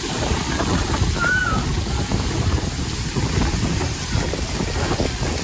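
Water spraying and splashing down from the play structures of a children's splash park, a steady rushing hiss, with wind rumbling on the microphone.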